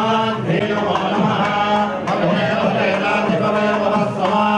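Male priests chanting Vedic mantras together, the voices holding a steady reciting pitch.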